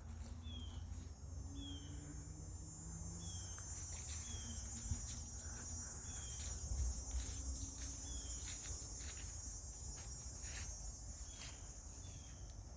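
Outdoor insect chorus buzzing steadily at a high pitch, with a short falling chirp repeating about once a second over it. A low rumble and a few scattered clicks sit underneath.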